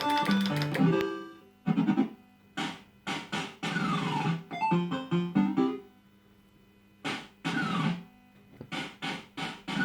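Pontoon fruit machine's electronic sound effects: short bursts of stepped, beeping jingles and falling tone sweeps, separated by brief pauses, as the machine runs in test mode.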